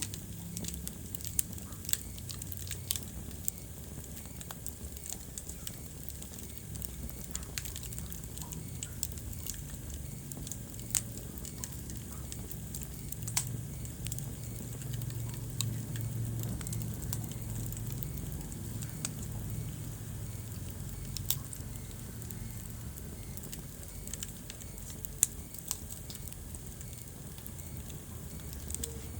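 Wood fire burning in a fireplace: scattered sharp crackles and pops over a steady low rumble of flame, with a few louder pops.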